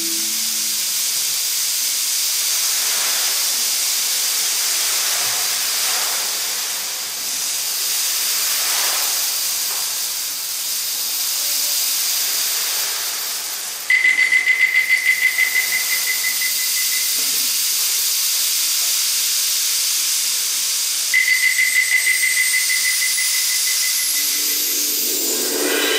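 Percussion ensemble playing a soundscape piece: a steady hissing wash that swells and ebbs every few seconds. Twice, about halfway and again later, a high warbling whistle-like tone comes in and fades over a few seconds. Just before the end a rising whistle and a lower tone join in.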